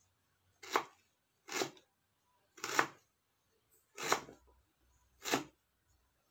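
Knife chopping fresh ginger root: five separate chops, unevenly spaced about a second apart.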